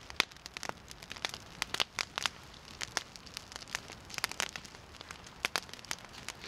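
A newly lit campfire crackling, with irregular sharp snaps and pops.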